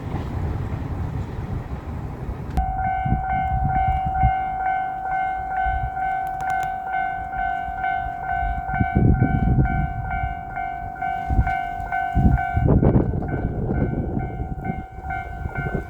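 Rumble of a JR Shikoku 2700 series diesel express train at a level crossing. From about two and a half seconds in, the crossing's electronic warning bell rings a steady repeating ding, with intermittent low rumbles beneath it.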